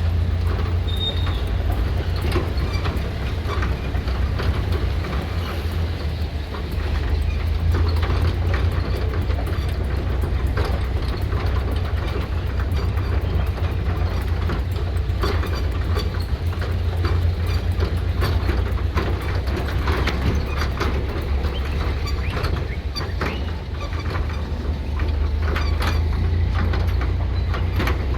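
A moving vehicle: steady low rumble with frequent clicks and rattles.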